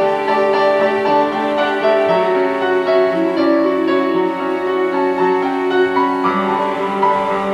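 Slow instrumental piano music with held string notes underneath.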